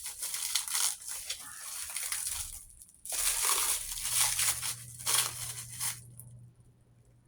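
Plastic packaging wrap crinkling and tearing as it is pulled off, in two long bursts with a short pause between them. A low, steady hum sets in about two seconds in: an old 1980s Kenmore refrigerator's compressor kicking on.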